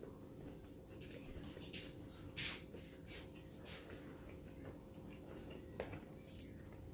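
Chewing sounds from a mouthful of crunchy taco shell: a handful of faint crunches and mouth clicks, the loudest near the end, over a low steady hum.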